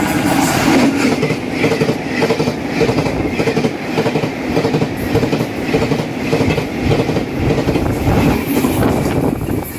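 Taiwan Railways push-pull Tze-Chiang express train passing at speed, its wheels clattering in a fast, regular rhythm over rail welds and fishplate joints.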